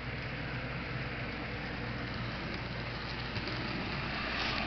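Model diesel locomotive running along the layout's track: a steady motor hum with wheels rolling on the rails, growing a little louder near the end as it comes closer.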